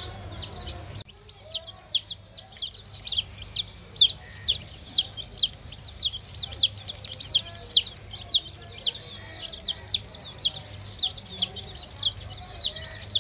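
A group of baby chicks peeping without a break: a steady stream of short, high, downward-sliding peeps, several a second, overlapping from many birds.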